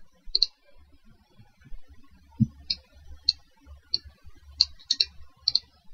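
Computer keyboard keys clicking at uneven intervals, about nine sharp clicks.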